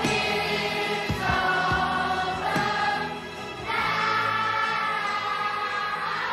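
A choir singing slow, long-held chords, moving to a new chord about every two and a half seconds.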